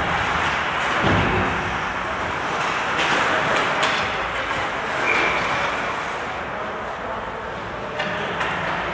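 Ice hockey game on an indoor rink: skates scraping the ice, a steady rink noise, with sharp knocks of sticks and puck a few times. A short high call sounds about five seconds in.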